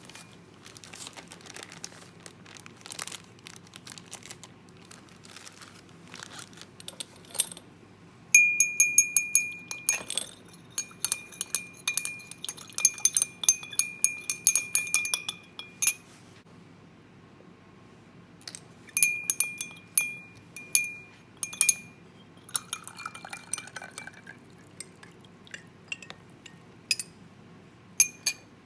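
Glass stirring rod clinking rapidly against the inside of a glass beaker while stirring, the glass ringing with a steady tone, in two long runs about eight seconds and twelve seconds after the start. Scattered single clinks and taps of glassware come before and after.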